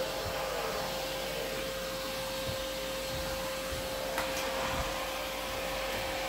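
Vacmaster 2.5-gallon, 2-peak-horsepower shop vacuum running steadily with a constant whine, with a few faint knocks.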